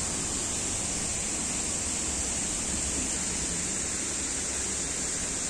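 Waterfalls pouring down the rock walls into a river: a steady, unbroken rush of water.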